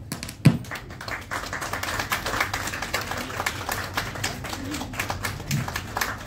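Audience applauding: many people clapping at once in an even, irregular patter.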